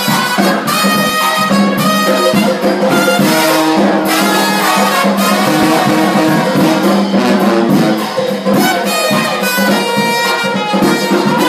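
Intro music led by brass, with held horn notes over a steady beat.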